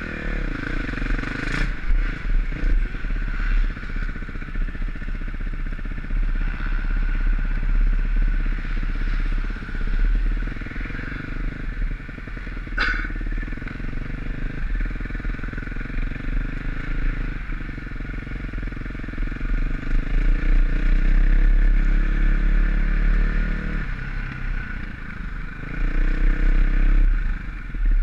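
2020 KTM 350XC-F's single-cylinder four-stroke engine running under the rider, its engine speed rising and falling with the throttle along a trail, with one sharp knock about halfway through.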